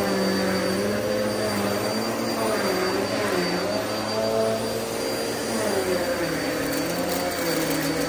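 Vacuum cleaner running steadily as its carpet nozzle is pushed back and forth over low-pile carpet. The motor's hum wavers slightly in pitch as the nozzle moves, over a thin steady high whine.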